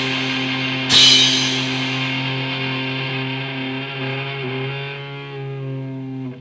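Final chord of a heavy metal song: an electric guitar chord held and left ringing, slowly fading, with a cymbal crash about a second in. The ring cuts off abruptly near the end.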